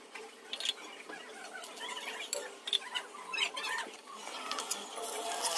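Scattered crackles and small pops of food cooking over a wood fire, with a dosa on a cast-iron tawa and a small pan of tempering oil on the flames, growing hissier near the end.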